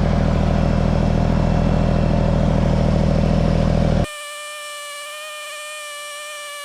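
Kubota BX sub-compact tractor's three-cylinder diesel engine running loud and steady. About four seconds in it cuts off abruptly and gives way to a quieter, steady hum of several even high tones.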